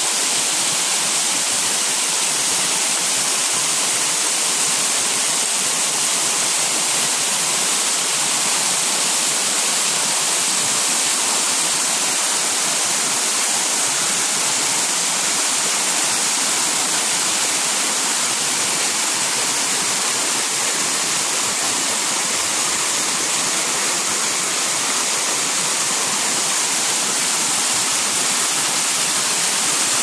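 A 30-foot waterfall pouring down a rock face and splashing into a shallow pool: a steady rush of falling water, heavy in hiss.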